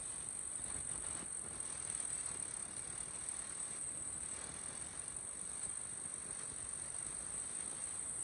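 Kubota M6040SU tractor's diesel engine running under load as it pulls a disc plough through wet, heavy mud, a steady rumble with no sharp knocks. A steady high-pitched hiss sits above it.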